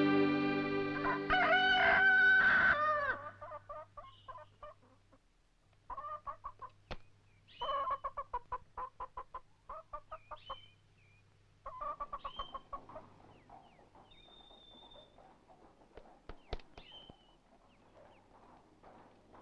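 A rooster crows over the end of a held music chord. Then chickens cluck in quick runs of notes, with a few short small-bird chirps scattered among them.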